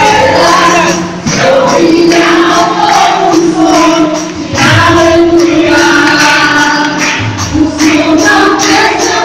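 Live gospel praise music: a group of women singing into microphones over a band, with the congregation singing along.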